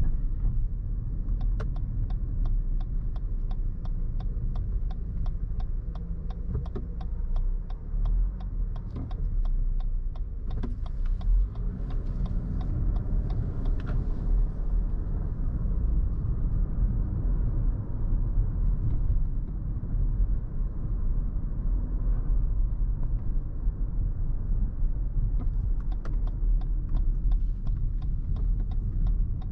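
Inside the cabin of a 2022 Lexus NX 350 (2.4-litre turbocharged four-cylinder) on the move: a steady low rumble of road and engine noise. Over it the turn-signal indicator ticks at about three clicks a second, starting a second or two in and stopping around eleven seconds, then again near the end.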